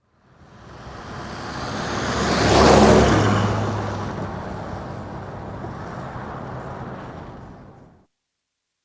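Sound effect of a motor vehicle passing by: a rushing road noise with a low engine hum that builds to its loudest about three seconds in, then fades away.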